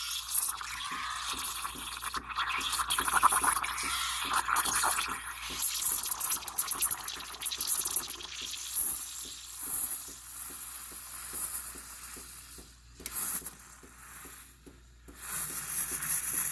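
Breville espresso machine's steam wand purging into a cup: a strong hiss that sputters as the first water spits out, with a few brief dips in strength.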